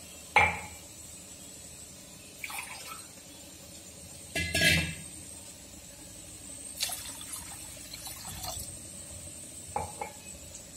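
Several scattered clinks and knocks in the kitchen, over a faint steady hiss from the gas burner under a pan of sugar and water. The loudest clinks ring briefly, about half a second in and again about four and a half seconds in.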